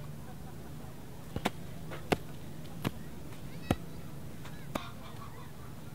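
About six sharp, irregular knocks of hard objects striking, over a steady low background hum.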